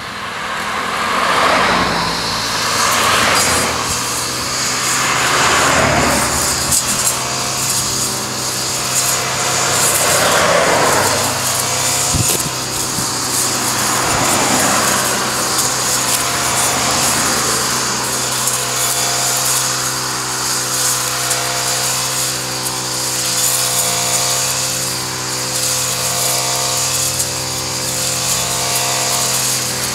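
Brush cutter fitted with a grass-cutting blade, its small engine running steadily as it mows grass. Several rising-and-fading swells of broader noise come in the first half.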